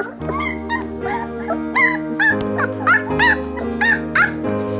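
Nineteen-day-old Central Asian Shepherd (Alabai) puppies yipping and whimpering, a quick series of short high-pitched squeals, over background music.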